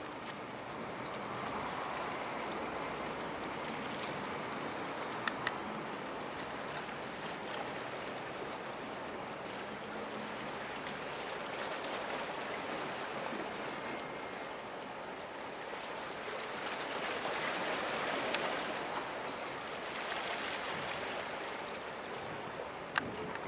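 Sea water washing and lapping at the shoreline, a steady rushing that swells and eases, with a few sharp clicks about five seconds in and near the end.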